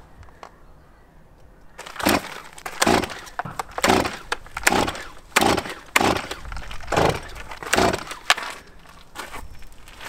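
Chainsaw being pull-started without catching: from about two seconds in, a quick series of about eight rips of the recoil starter cord, roughly one a second, with no engine running between them.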